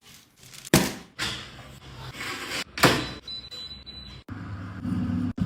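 Air fryer oven being handled: two sharp knocks of its door and tray with clatter between, a short high beep, then a steady low hum as the oven's fan runs.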